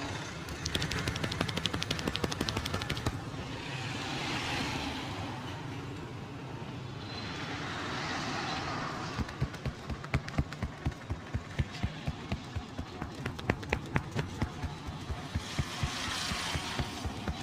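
Hand slaps and taps of a head and body massage: a fast flurry of light pats, then a steadier run of louder slaps about three a second, with swells of hiss in between.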